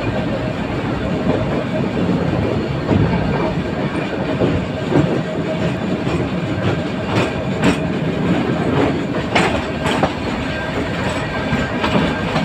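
Nilgiri Mountain Railway metre-gauge passenger coach rolling along the track, heard from the coach: a steady rumble with irregular sharp clacks of the wheels over the rail joints.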